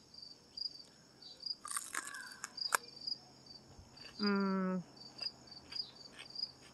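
A crisp, crunchy bite into a raw Lesya sweet bell pepper about two seconds in, with a sharp snap at the end of it, then a short closed-mouth "mmm" about four seconds in. Crickets chirp steadily behind it, about three chirps a second.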